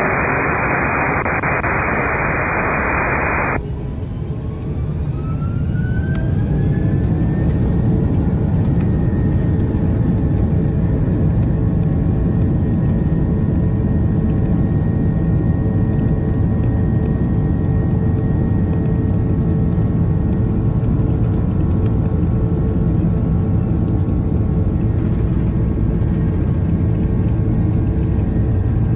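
A few seconds of hiss from the air-traffic-control radio feed. Then the Airbus A330-300's jet engines spool up to takeoff thrust with a rising whine, which levels off into a steady whine over a loud, deep rumble heard inside the cabin as the airliner accelerates on its takeoff roll.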